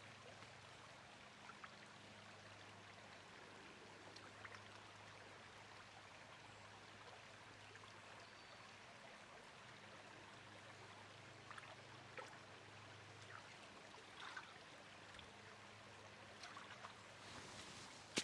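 Faint, steady running water of a small creek, with a few soft ticks and knocks scattered through.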